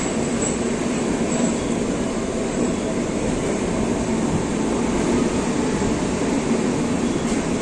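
Passenger train running at speed, heard from the open doorway of a coach: a steady rumble of wheels on the rails.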